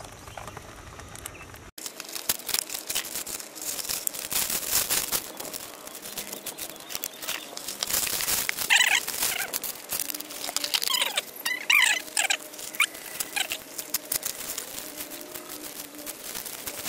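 Chocolate boxes, trays and foil and plastic wrappers being handled and unwrapped, giving a run of rustles and crinkles. Birds chirp in the background from about a third of the way in.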